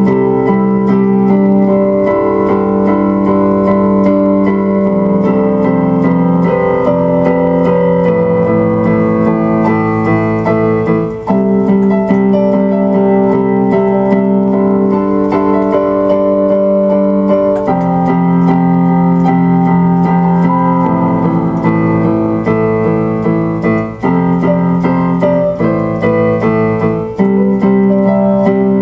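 Electronic keyboard playing slow, sustained chords that change every few seconds.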